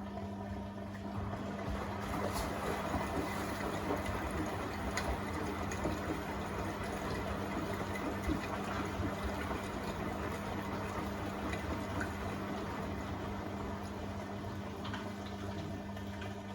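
Beko WTK104121A washing machine in its rinse cycle: water rushing and sloshing through the machine over a steady low hum.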